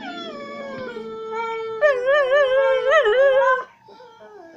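Beagle-mix dog 'talking': a long, drawn-out howling whine. It starts as a steady tone, then turns louder with its pitch wavering up and down, and stops sharply about three-quarters of the way through. A fainter, softer whine follows.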